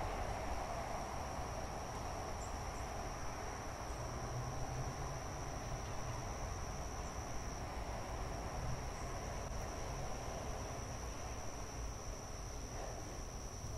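Insects trilling in one steady, unbroken high tone over a low, even background rumble.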